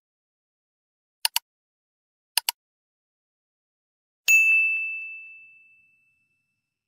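Sound effects: two quick double clicks, then a single bright ding that rings and fades out over about two seconds.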